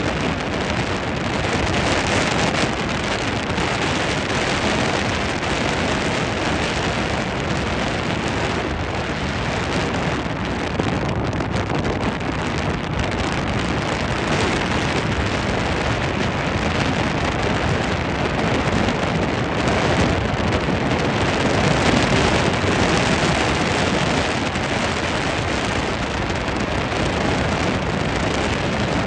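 Steady rushing noise of wind buffeting the microphone and water streaming past the hull of a moving speed boat.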